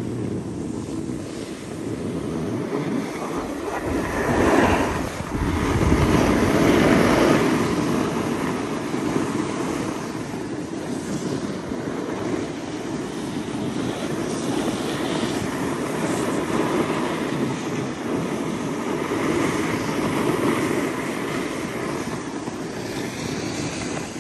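Snowboards sliding and scraping over groomed, hard-packed snow, with wind rushing over the microphone; the scraping swells for a few seconds a little way in.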